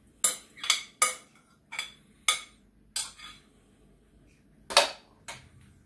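A utensil knocking and scraping against the inside of a glass mixing bowl while the last of the quiche filling is scraped out: about eight sharp clinks at irregular spacing, the loudest a little before the end.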